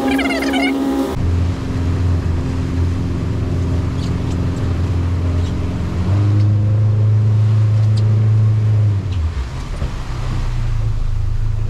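Mercury outboard motor driving the boat under way, running steadily. Its note rises about six seconds in and falls back about three seconds later.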